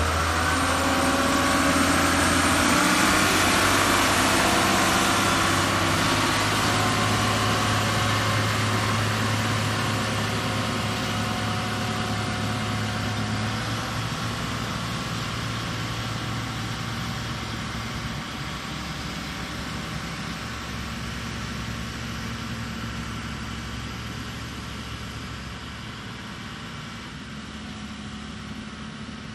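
A heavy construction machine's engine running steadily with a low hum. It is loudest in the first few seconds and slowly fades.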